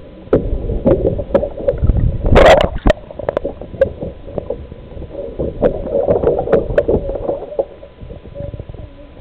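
Muffled sea water sloshing and gurgling around a camera in the water, with irregular clicks and one louder gush about two and a half seconds in.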